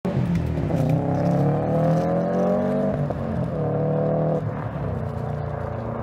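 Car engine accelerating: its pitch climbs for about two seconds, drops sharply about three seconds in, then holds steady before easing off.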